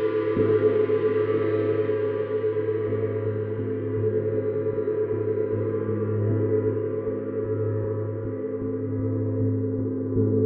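Neptune planet gong played with a felt mallet in a steady run of light strokes, about three a second, keeping up a sustained wash of many ringing tones, with a strong low hum and a brighter mid-range ring.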